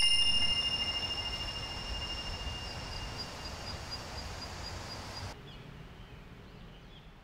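A high ringing tone, like a struck chime or bell, dying away slowly over a faint hiss; the hiss drops off about five seconds in.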